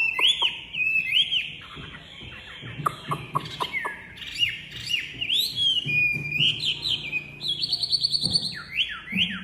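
Chinese hwamei singing a loud, varied song of repeated arching whistled notes, with a rapid trill about eight seconds in.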